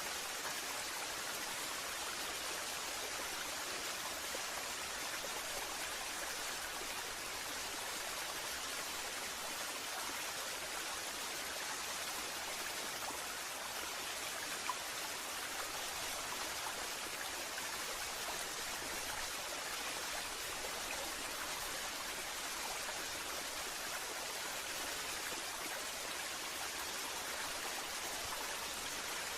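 Waterfall: falling water rushing in a steady, unbroken hiss, with one brief click about halfway through.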